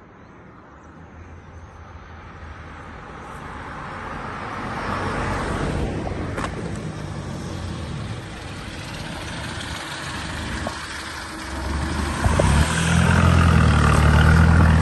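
Motor vehicle on the move: steady engine and road noise that builds over the first few seconds, with a low engine note coming up strongly and getting louder about twelve seconds in.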